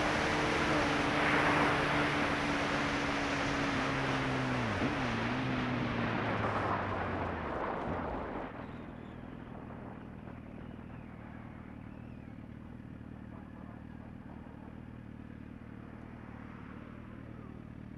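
Wind rushing over a helmet-mounted microphone over a sport bike's engine running and slowing. Its pitch dips briefly about five seconds in. After about eight seconds the wind noise drops away and the engine idles steadily.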